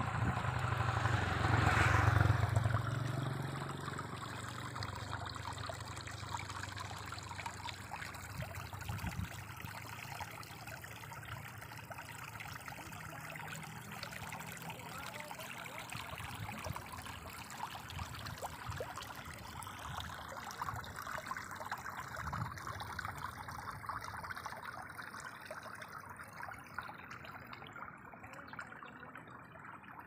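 Steady trickle of running water, a continuous fine splashing hiss, with a louder low rumble in the first three seconds.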